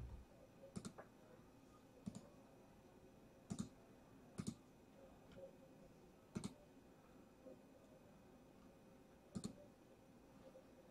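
Scattered sharp single clicks, about six in ten seconds at uneven intervals, against quiet room tone.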